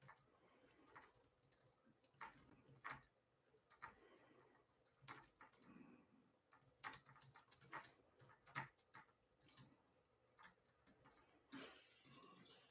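Near silence with faint, irregular clicks and taps of typing on a computer keyboard.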